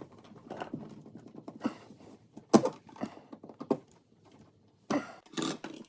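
Irregular clicks, taps and short scrapes of a screwdriver and stiff copper wires being worked at an electrical box while a ground wire is tightened under its ground screw; the sharpest click comes about two and a half seconds in.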